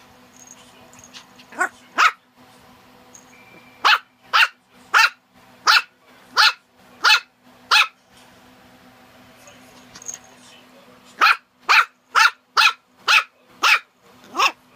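A small white puppy barking in short, sharp barks: two about two seconds in, then a run of seven at about one and a half a second, and after a pause of some three seconds a quicker run of eight.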